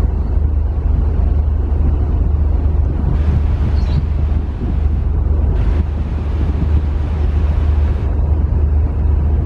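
Steady low drone of a ferry's engines heard on deck, with wind buffeting the microphone.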